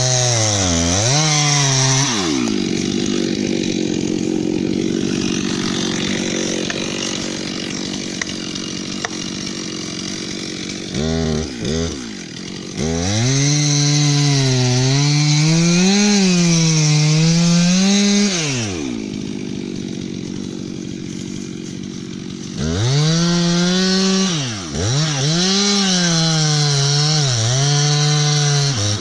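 Stihl MS 362 C two-stroke chainsaw cutting into the trunk of a standing tree at full throttle. Its pitch wavers as the chain loads and unloads. Between the long cuts it drops back to a low idle, and it is blipped twice briefly about a third of the way in.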